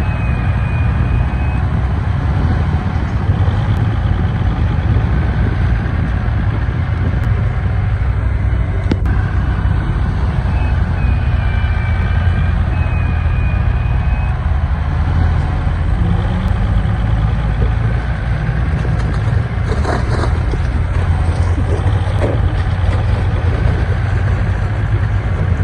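Heavy diesel construction machinery running steadily with a deep, continuous rumble, with a few faint high squeaks over it.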